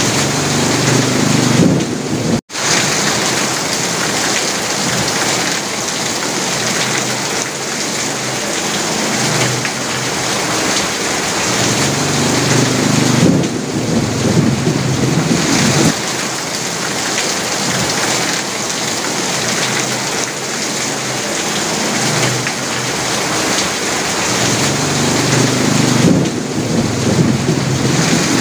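Heavy rain drumming steadily on an asbestos (fibre-cement) roof, a dense unbroken hiss. Low rumbles swell up three times, and the sound cuts out for an instant about two and a half seconds in.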